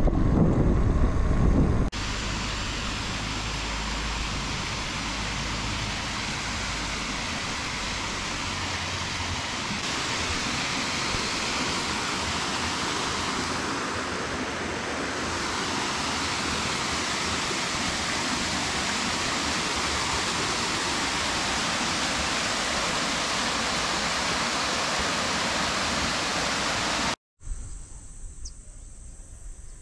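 Steady, even rush of running water, a constant hiss. It opens with about two seconds of wind buffeting the microphone. Near the end it cuts to a much quieter background with a faint, steady high tone.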